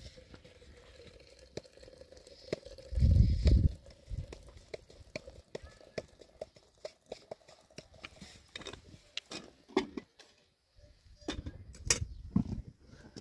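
Clinks and knocks of a kettle and teapot being handled at a small wood fire, with cracks of burning wood. There is a brief loud low rumble about three seconds in.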